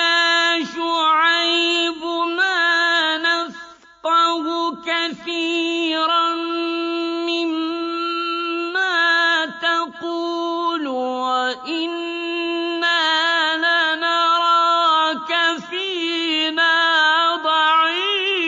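Qur'anic recitation in Arabic: a single voice chanting a verse in long, melodic held notes with ornamented wavering, pausing briefly for breath between phrases.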